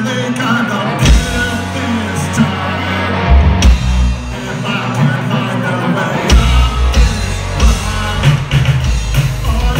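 Three-piece rock band playing live: electric guitar, bass guitar and drum kit, with a heavy low end and regular drum hits.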